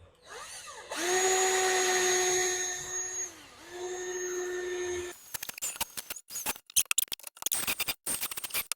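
Power drill spinning up and running steadily while drilling through a stuck leaf-spring bushing. It slows briefly as it bites about three seconds in, then stops about five seconds in. A rapid, irregular clattering of clicks follows to the end.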